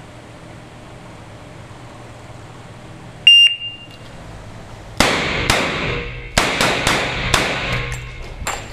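A shot timer beeps once, briefly. About a second and a half later a revolver fires a quick string of shots, each with a ringing echo, coming more slowly near the end.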